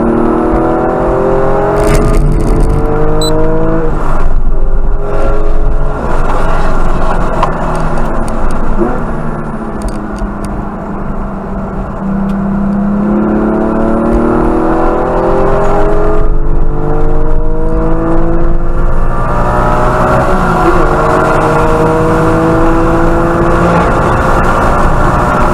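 Porsche GT4's flat-six engine heard from inside the cabin under hard track driving. The revs climb, break at gear changes and climb again, with a lower, quieter stretch in the middle while the car goes through a slow corner.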